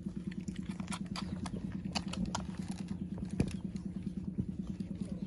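Several puppies suckling at once: a fast, even rhythm of sucking and smacking, with sharper clicks scattered through and one louder click about three seconds in.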